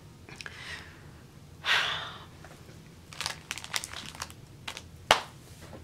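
Plastic bags crinkling and crackling as they are handled, in several short bursts, with one sharp click near the end.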